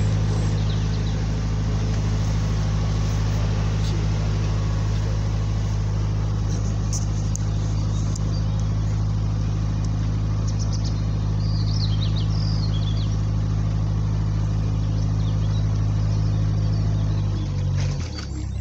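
A narrowboat's diesel engine running steadily at cruising speed, a deep even hum, with the engine note dropping near the end as the throttle eases. Birds chirp faintly a few times.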